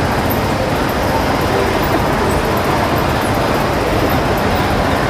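Steady hubbub of a crowd, many voices mixing into an even murmur with no single voice standing out.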